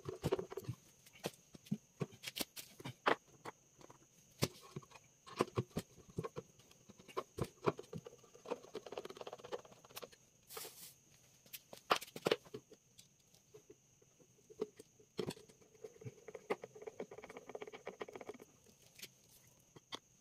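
Scattered light clicks, taps and scrapes of hand work with a screwdriver and screws on a wooden speaker cabinet, coming at an irregular pace.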